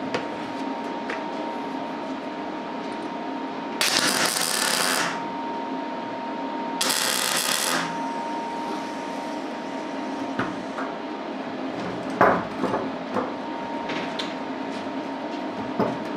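MIG wire-feed welder laying two short tack welds on steel rebar, each a loud crackling, sizzling hiss of the arc, the first about 1.5 s long and the second about a second. A sharp knock and a few clicks follow later as the work is handled.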